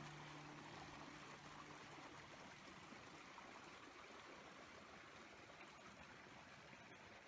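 Faint, steady murmur of a shallow woodland creek.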